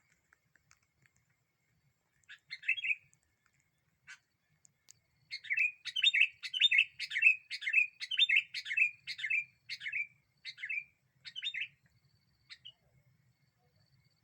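Sooty-headed bulbul (kutilang) calling: a short phrase about two and a half seconds in, then a quick run of about a dozen bright chirping notes, roughly two a second, for about six seconds before it stops.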